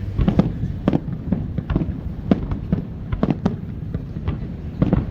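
Aerial fireworks bursting in a rapid, irregular string of sharp bangs, several a second, over a continuous low rumble.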